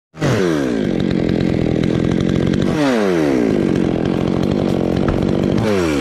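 Two-stroke chainsaw running at speed against a coconut palm trunk. Its engine pitch drops sharply three times, about every three seconds, and holds steady in between.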